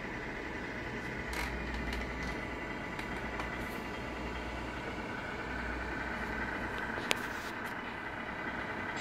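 Steady diesel-engine idle sound played by the engine-sound unit of a 1/14 Tamiya Scania P340 RC truck, with a single sharp click about seven seconds in.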